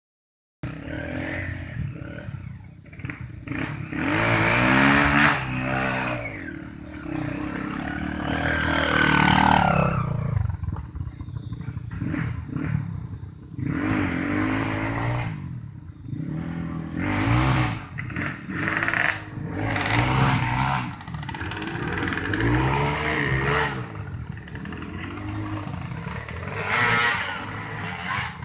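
Motorcycle engine revving up and easing off again and again while climbing a steep hill.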